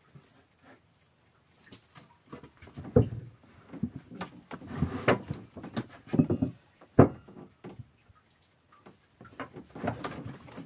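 Irregular knocks, rubs and scrapes of a fishing handline being worked by hand against a small wooden boat. They start after a couple of quiet seconds, with the loudest knocks about three, five and seven seconds in.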